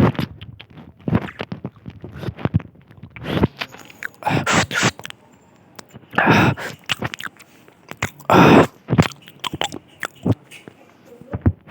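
A person chewing and crunching goat meat close to the microphone: a run of small wet clicks and several louder bursts of crunching.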